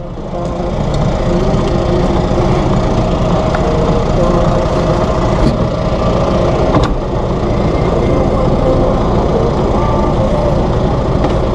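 A heavy vehicle's engine running steadily with a low rumble. There is a single click about seven seconds in.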